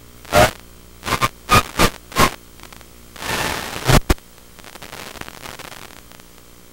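Irregular bursts of crackling radio static on an FPV drone's analog video link, over a faint steady hum, with a longer hiss about three seconds in. After about four seconds the bursts stop and only a low rough hiss is left.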